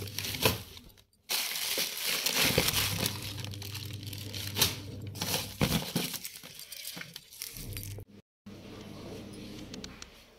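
Plastic bag and newspaper rustling and crinkling as a newspaper-lined wire storage rack is cleared out by hand. The sound stops briefly about a second in and again near eight seconds.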